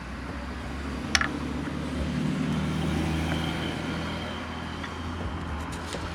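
A motor vehicle going past: a low engine hum that swells and then fades, with one sharp click about a second in.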